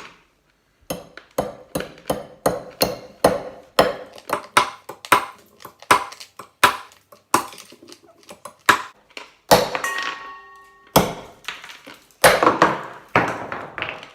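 A knife repeatedly chopping at a giant hard-candy jawbreaker, one or two sharp strikes a second. One blow near the middle leaves a brief metallic ring, and the loudest strikes come near the end.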